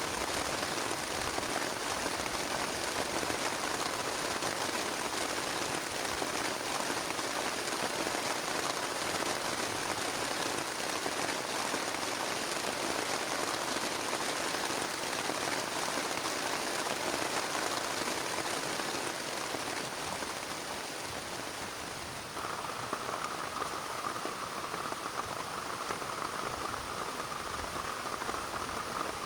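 Heavy rain falling steadily on a plastic tarp, a dense, even patter. About three-quarters of the way through the sound changes abruptly, turning a little louder and brighter.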